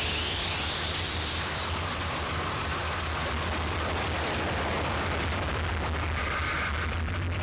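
Harsh noise music: an unbroken wall of distorted noise over a steady low hum. A hissing upper band rises in pitch over the first couple of seconds, and a fainter band comes in about six seconds in.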